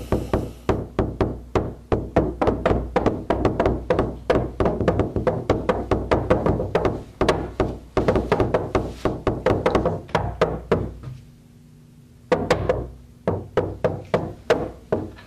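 Rapid, persistent knocking on a door, about five strikes a second, that stops about eleven seconds in and starts again about a second later for a shorter run.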